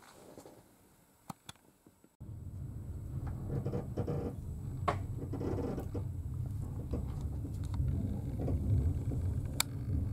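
A few faint clicks, then about two seconds in a sudden switch to the steady low rumble of a moving train heard from inside the carriage, with occasional clacks.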